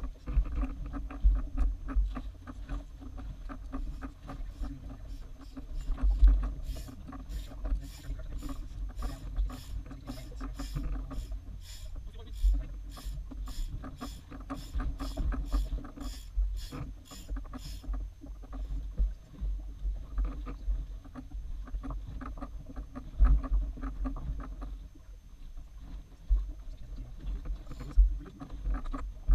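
Gusty low rumble and a steady low hum on a boat's deck. From about six seconds in to about eighteen seconds a run of sharp clicks comes about twice a second.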